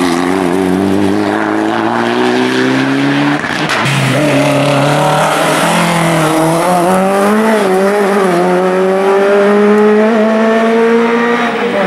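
Mitsubishi Lancer Evolution rally car accelerating hard, its engine note rising steadily for about three seconds. After a sudden cut, a Lada rally car accelerates out of a bend: its engine note wavers briefly, then climbs steadily.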